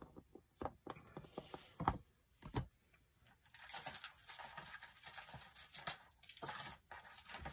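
A few light knocks of a clear acrylic stamping block and other tools set down on a craft mat, then an uneven rustle of a plastic sheet of clear stamps being handled from about three and a half seconds in.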